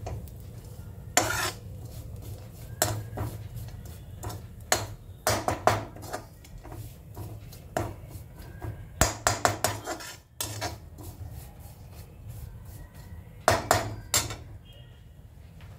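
Perforated steel spoon scraping and knocking against a metal kadai while semolina and nuts are stirred and roasted, in irregular clusters of scrapes and clanks over a steady low hum.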